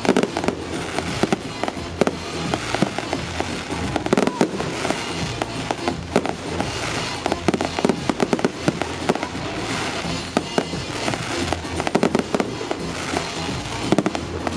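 Fireworks display: a dense, unbroken run of sharp bangs and crackling from aerial shells and crackle stars bursting one after another.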